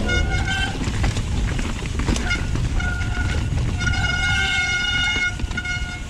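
Mountain bike disc brakes squealing on wet rotors, in several on-and-off steady high-pitched squeals, the longest about a second and a half, as the brakes are dragged down a slippery descent. Beneath them runs a steady low rumble of tyres and wind.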